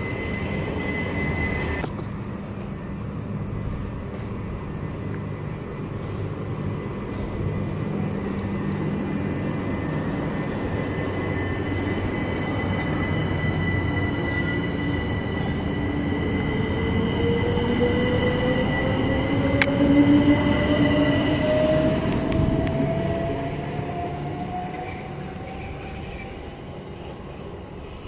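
A train running along the rails, its rumble building to a peak about twenty seconds in and then fading. A thin high wheel squeal runs through most of it. Over the last ten seconds or so a motor whine rises steadily in pitch.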